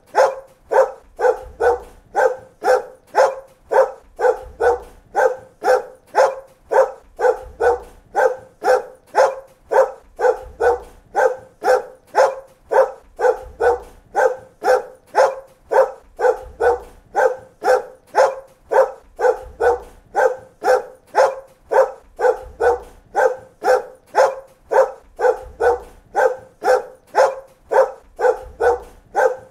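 A dog barking over and over at an even, unbroken pace, nearly two barks a second.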